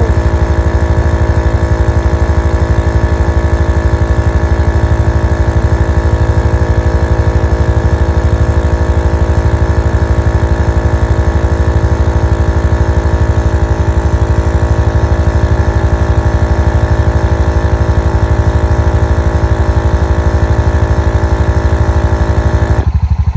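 EPAuto 12 V portable air compressor running steadily while inflating a UTV tire, then cutting off abruptly near the end as its automatic shut-off reaches the set pressure. A low, rhythmic idling-engine rumble continues underneath.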